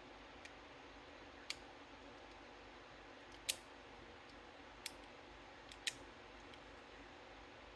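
Faint, sharp metal clicks, about five at uneven intervals with the loudest a little past halfway, from a pick wire and tensioner working the levers of a Walsall Ace lever safe lock under tension.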